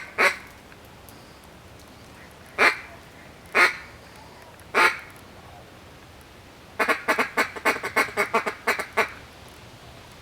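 Hunter's duck call blown at incoming ducks: four loud single quacks spaced a second or so apart, then a quick run of about a dozen quacks near the end.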